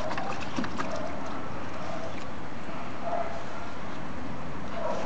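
Small terrier splashing and sloshing about in the muddy water of a plastic paddling pool, with scattered splashes in the first second, over a steady background hiss.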